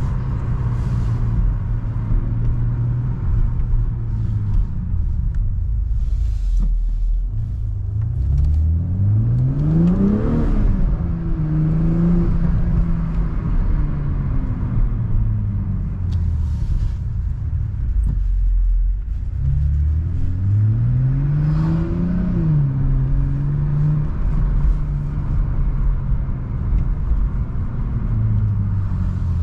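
BMW M340i's stock-exhaust turbocharged straight-six (B58) accelerating hard twice, its note climbing steeply about eight and about twenty seconds in and dropping back after each peak. Between the pulls the engine settles into steady running over road noise.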